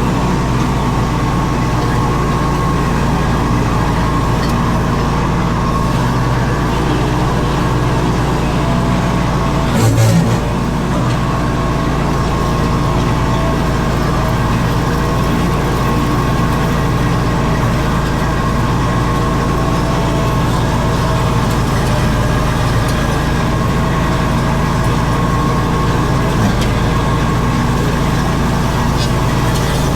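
Zero-turn mower engine running steadily under load, with a single brief thump about ten seconds in.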